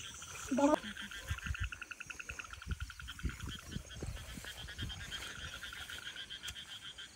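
Frogs calling in a night chorus: a fast, steady pulsed trill of roughly ten pulses a second. A few low thuds sound in the first half, and a short vocal sound comes about half a second in.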